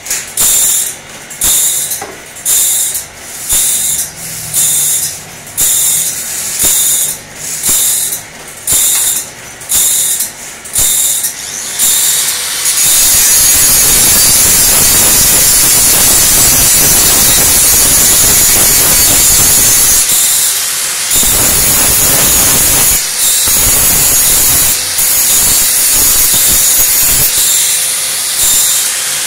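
Angle grinder sharpening the teeth of a steel band saw blade: short grinding passes in a regular rhythm, a little more than one a second, then after about twelve seconds one long continuous grind with a couple of brief dips.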